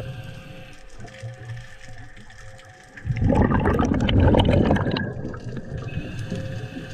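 Underwater sound of water bubbling and rushing past the camera in a loud burst about three seconds in that lasts roughly two seconds, with scattered faint clicks and crackles before and after.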